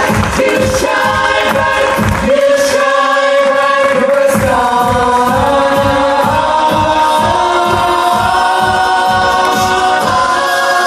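Stage-show vocal ensemble singing held harmonies over music with a steady beat.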